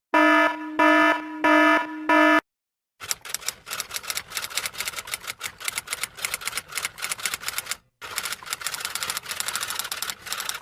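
An electronic alarm beeps four times, about half a second apart. After a short pause comes rapid, continuous typewriter key clacking.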